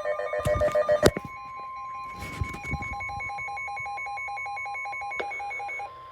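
Emergency weather alert tones: a fast warbling, ringing tone with a few knocks for about the first second. Then a steady high warning tone with beeps pulsing over it at about three a second, the attention signal ahead of a National Weather Service warning. The beeps cut off near the end.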